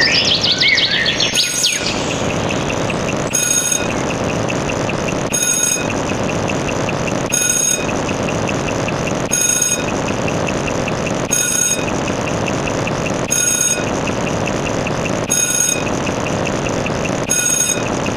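Looped sound effect: a steady rumbling noise like a running engine, with a short electronic beep about every two seconds and a fast high ticking. A few squealing chirps sound in the first second or so.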